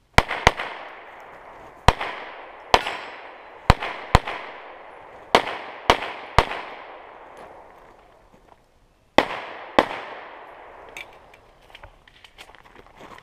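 Pistol fired in quick pairs, about eleven shots, each with a ringing echo that fades away. There is a pause of nearly three seconds before the last pair.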